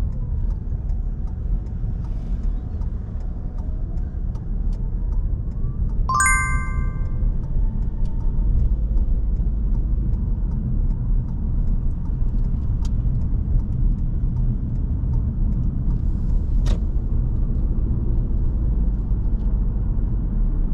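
Inside a moving car: steady low engine and road rumble, with faint even ticking of the indicator through the first five seconds or so. About six seconds in, a short bright electronic chime sounds once and fades quickly.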